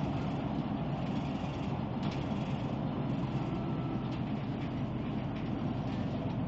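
Connexxion Zuidtangent bus in motion: a steady, low rumble of engine and road noise.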